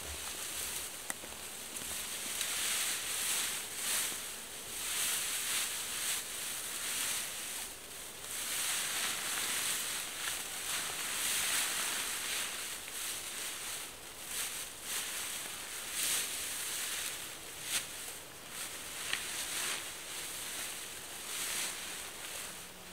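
Dry bracken fern rustling and crackling as it is spread into a bed and lain on, in swells that rise and fade every few seconds.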